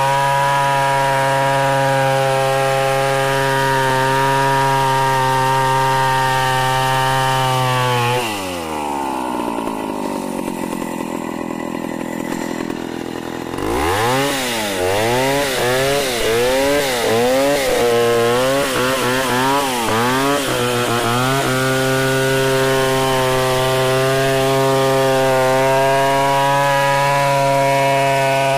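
Stihl 070 two-stroke chainsaw ripping along a log in a freehand milling cut. About 8 s in the engine slows to a lower, quieter run for several seconds. It is then revved up and down several times before settling back into a steady full-throttle cut.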